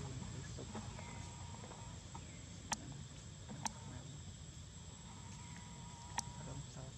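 Outdoor ambience with a steady high-pitched insect drone and a low rumble underneath, broken by three sharp clicks, two near the middle and one near the end.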